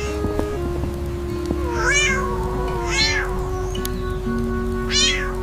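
A cat meowing three times, about two, three and five seconds in, each call rising and falling in pitch, over background music with steady held notes.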